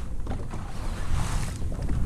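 Wind buffeting the microphone on an open boat on the water: an uneven low rumble, with a brief hiss about a second in.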